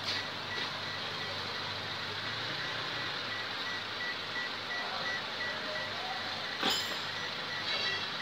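The Toyota Avanza's dashboard warning buzzer beeping steadily, about four short beeps a second at one pitch. A sharp click sounds about two-thirds of the way through.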